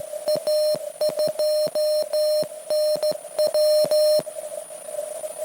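Morse code (CW) from a (tr)uSDX QRP transceiver: a steady tone of about 600 Hz keyed in dots and dashes, each element with a sharp click at key-down. The keying stops about four seconds in, leaving faint receiver hiss.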